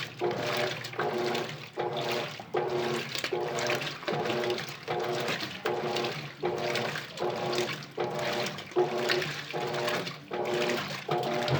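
Colormaq LCA12 top-loading washing machine agitating. The motor hums with each back-and-forth stroke, about one stroke every three-quarters of a second, and water sloshes in the drum.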